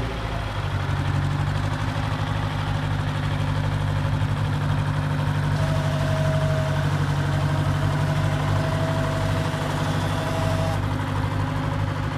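Austin-Western road grader's engine idling steadily, its pitch stepping up slightly about half a second in.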